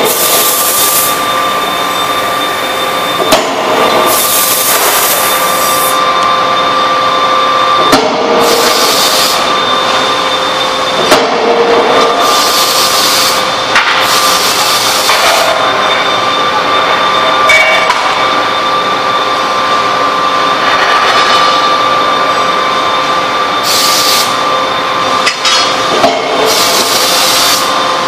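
Industrial power forging hammer forging a red-hot workpiece. A steady machine hum with a high tone runs throughout, broken by several sharp hammer blows and repeated bursts of loud hissing.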